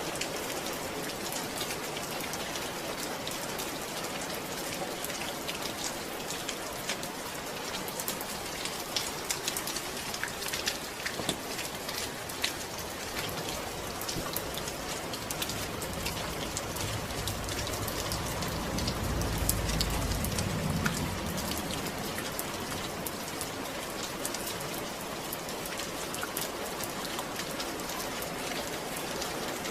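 Steady rain falling, with many individual drops ticking on a surface. About two-thirds of the way through, a low rumble swells for a few seconds and fades.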